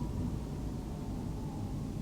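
Car driving on a city road: steady low engine and tyre rumble, with a faint whine slowly falling in pitch.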